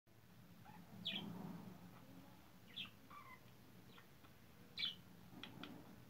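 Pet budgerigar chirping and warbling: sharp high chirps about a second in, near three seconds and near five seconds, with a few short falling notes between them.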